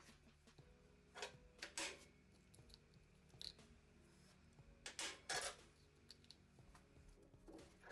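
Faint, scattered short scrapes and clicks of metal engine parts and hand tools being handled, about five separate sounds, with two close together around five seconds in.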